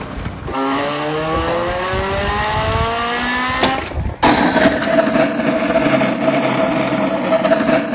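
Motor revving up, its pitch rising steadily for about three seconds. After a short break about four seconds in, a steady droning hum runs on.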